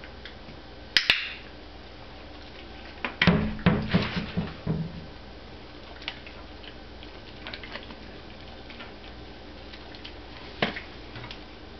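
A dog-training clicker gives a quick double click-clack about a second in, marking the greyhound's touch on the cabinet door for a treat. A couple of seconds later comes a burst of wooden knocks and rattles, and near the end one more sharp click.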